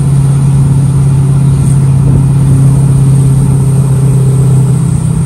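Straight-piped LML Duramax diesel pickup with a Stealth 64 mm turbo and its muffler removed, driving at a steady speed, heard from inside the cab: a loud, steady low drone with a faint high whine above it.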